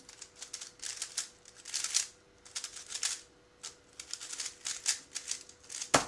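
Plastic clicking and clacking of a MoYu Weilong WR M speedcube being turned fast, in quick bursts with short pauses. It ends just before six seconds with a sharp slap of hands onto the timer pad, the loudest sound.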